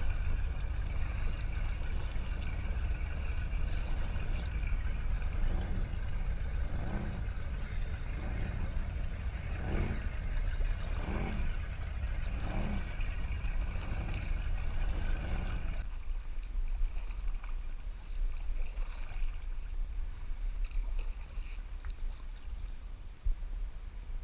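Motorboat engine running, its pitch swelling and falling several times, over a low wind rumble on the microphone. About two thirds in, the engine and rumble drop away, leaving quiet water and light kayak paddle splashes.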